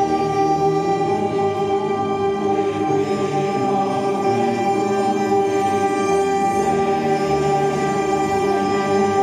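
Choir singing long, sustained chords in a large stone cathedral, the held notes shifting every few seconds.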